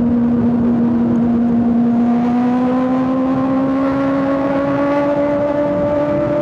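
Kawasaki ZX6R 636 inline-four engine pulling under steady throttle. Its note holds level, then rises slowly from about two seconds in as the bike gathers speed.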